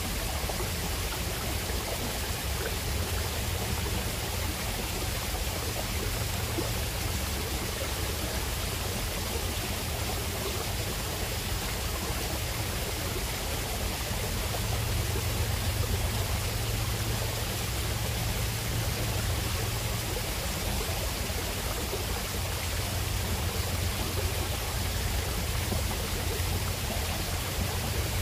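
Small waterfall spilling over stacked rock ledges into a pool: a steady rush of falling water with a deep rumble underneath.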